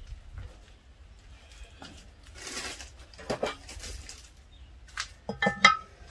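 Metal lids being handled on a kettle grill and the Dutch oven inside it as they are opened. A soft scrape about halfway, then a few sharp metal clanks with a brief ring near the end.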